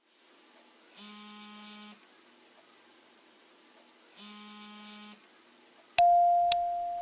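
Two low, buzzy electronic tones, each about a second long and about three seconds apart. Near the end a louder, higher steady tone begins, broken by sharp clicks.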